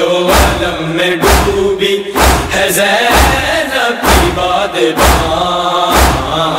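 Male chorus chanting a noha lament over steady matam: palms striking chests in heavy, even thuds a little faster than once a second, seven in all.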